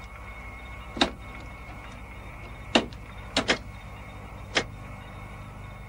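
Sci-fi control-room computer sound effects: a steady electronic hum with a faint high held tone, broken by five short falling electronic chirps, one about a second in, then a single chirp, a quick pair and one more spread over the next few seconds.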